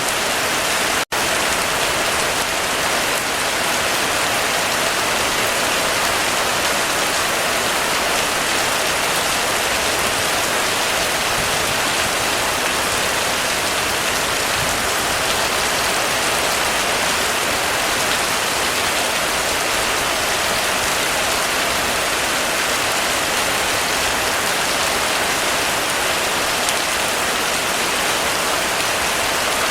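Heavy rain falling steadily on a roof: a dense, even hiss of drops. There is a momentary drop-out about a second in.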